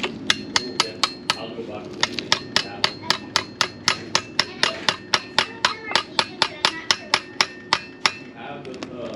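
An even run of sharp metallic taps or clicks, about three to four a second, with a short break about a second and a half in.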